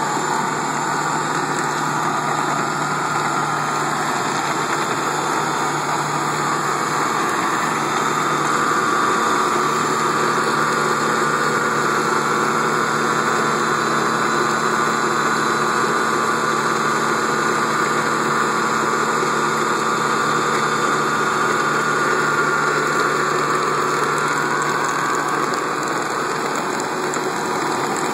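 Tractor engine running steadily at constant speed, driving a Lewis chain trencher through its PTO shaft as it cuts a narrow drain trench through turf and its conveyor throws up the spoil.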